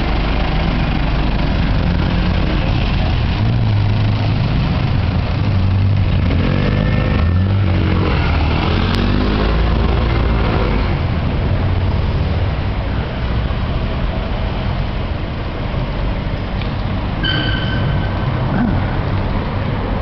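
City street traffic: motor vehicles running with a steady low rumble, including a London black cab's diesel engine as it drives off. A brief high tone sounds about three-quarters of the way through.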